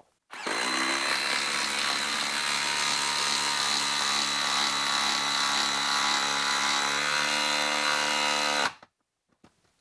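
DeWalt cordless impact driver on speed 3 driving a lag screw into a wooden log, hammering steadily under load. It starts just after the start and stops suddenly as the screw seats, after about eight and a half seconds.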